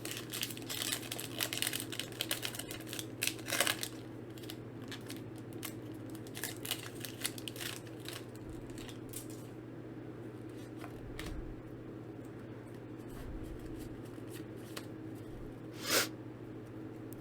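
A foil booster pack being crinkled and torn open, then cards being handled and shuffled, with dense crackling for the first few seconds, scattered light ticks after, and one short loud rustle near the end. A steady low hum runs underneath.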